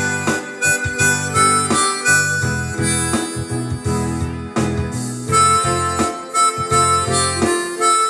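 Instrumental background music: a held, sustained melody line over low bass notes, with no singing.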